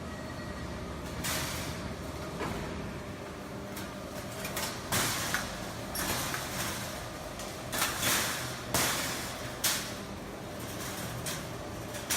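CNC plasma cutting machine at work: a steady machine hum with about eight short bursts of hiss, bunched from about five seconds in.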